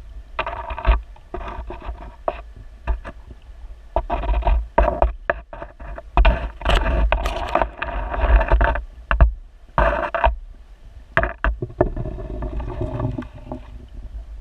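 Creek water moving around a GoPro in its waterproof housing underwater: a steady low rumble, irregular surges of rushing noise, and scattered sharp knocks.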